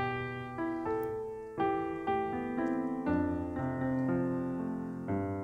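Background music on an electric piano or keyboard: a melody of separate held notes changing every half second or so.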